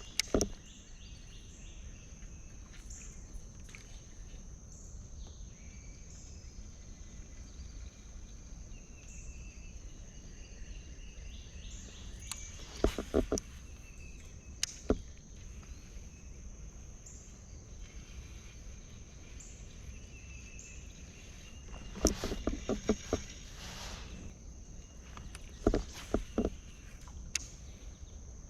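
Insects droning steadily in a high, even band, with faint chirps repeating every second or two. Three short clusters of sharp clicks and knocks stand out above it, about halfway through and twice near the end.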